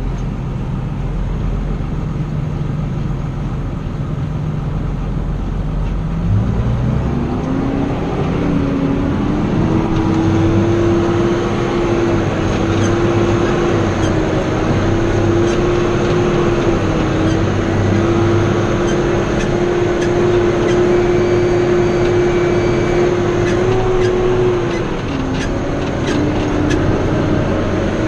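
Vehicle engine running, revving up about six seconds in and then holding a steady high speed, dipping briefly near the end.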